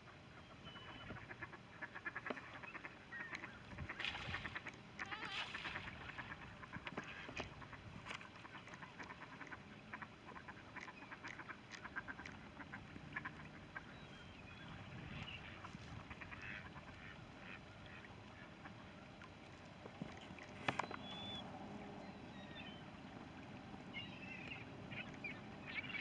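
A flock of ducks and Canada geese calling: many short quacks and honks, scattered, with busier stretches about four to seven seconds in and again near the end.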